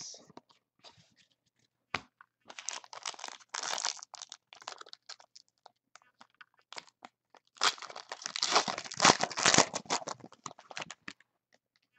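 Foil trading-card pack wrappers crinkling and being torn open by hand, in two spells of rustling about two seconds in and about eight seconds in, with scattered small clicks.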